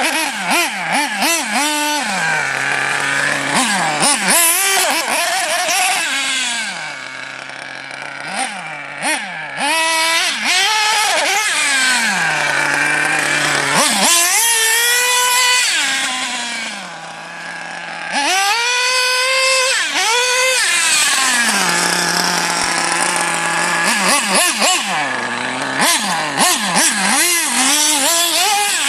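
RC car's motor revving up and down again and again as it is driven, settling now and then to a steady low pitch between bursts of throttle.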